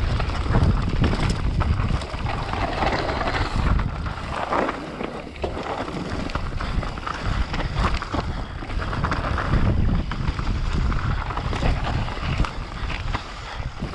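Mountain bike running down a dirt singletrack: wind buffeting the microphone over the rumble of the tyres on the dirt, with frequent short rattles and knocks from the bike over roots and bumps.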